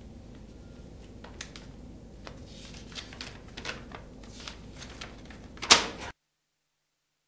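Paper crackling and rustling as a folded slip is opened out, in scattered small clicks that grow busier, with the loudest, sharpest crackle just before the end. Then the sound cuts out to dead silence.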